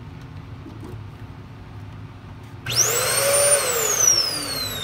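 Shark Rotator Pro NV500 vacuum's suction motor switched on to test a newly fitted replacement power switch. About halfway through it starts suddenly with a rush of air and a fast-rising whine, runs at speed for under a second, then winds down with a long falling whine.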